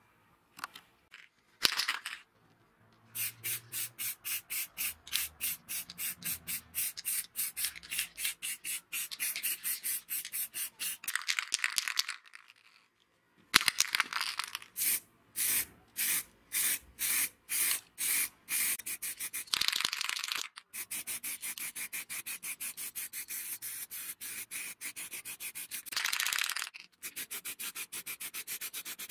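Aerosol spray-paint can spraying in short, rapidly repeated hissing bursts, several a second, with a few longer sprays in between and a brief pause about halfway through.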